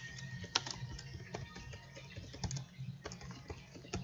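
Computer keyboard being typed on: irregular keystroke clicks at an uneven pace, over a steady low hum.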